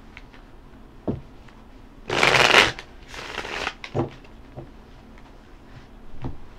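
A tarot deck shuffled by hand, with two quick bursts of shuffling about two and three seconds in and a few light knocks of the cards around them.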